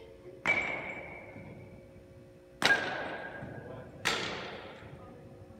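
Three hits of metal baseball bats on balls, about two and then one and a half seconds apart, each a sharp crack with a brief ringing ping. Each hit echoes long in a large indoor hall.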